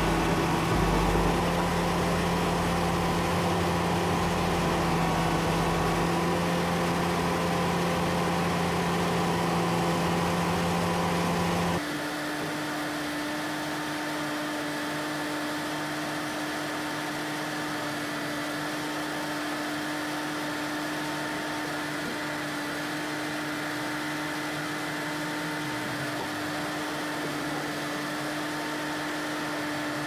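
Engine of road-paving machinery running steadily at a constant pitch. About twelve seconds in, the sound changes abruptly to a quieter, higher-pitched steady hum.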